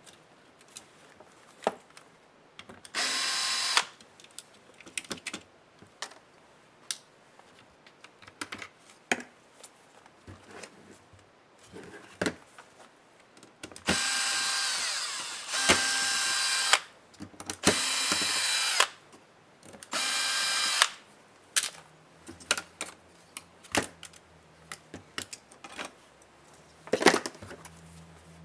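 Small electric screwdriver whirring in five short runs of one to three seconds, driving laptop screws. Between the runs come small clicks and taps of screws and plastic parts being handled.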